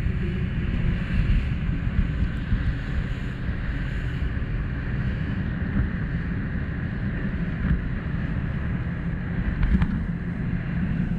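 Motorboat running at speed over open water: wind buffeting the microphone over the motor and rushing water, with a couple of sharp knocks near the end.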